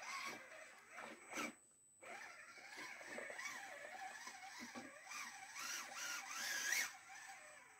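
RGT Bowler 1/10-scale RC crawler's electric motor and gear drivetrain whining as it creeps up a wooden ramp, the pitch wavering up and down with the throttle. The whine stops briefly about a second and a half in, then climbs to its highest pitch near the end before dropping away.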